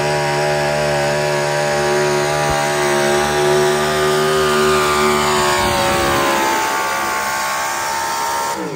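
A pulling vehicle's engine run hard at high, steady revs under load during a pull. Over the last few seconds the revs fall away, and the sound cuts off abruptly near the end.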